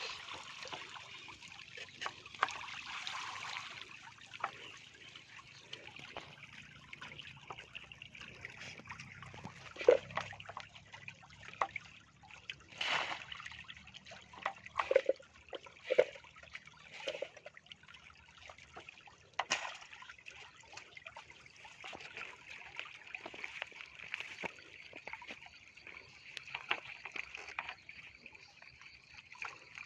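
Shallow water trickling, with scattered small splashes and sharp knocks; the two loudest knocks come about ten seconds in and just before the twenty-second mark.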